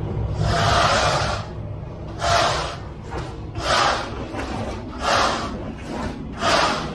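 Metal screed straightedge scraping across wet concrete in a sawing motion while the fresh slab is struck off: about five strokes, roughly a second and a half apart.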